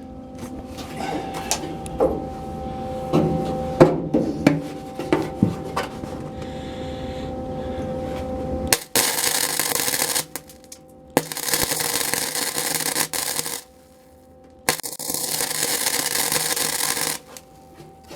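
Tack welding sheet steel: three short bursts of welding-arc hiss with pauses between them, after a few knocks and clanks of metal being handled and set.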